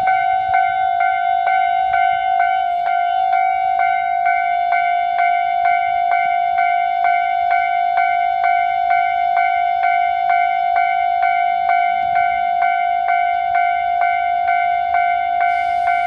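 Railway level-crossing warning bell ringing without a break, an even run of strikes a little under three a second, each ringing on into the next so a high tone hangs over them. It is the crossing's warning that a train is approaching.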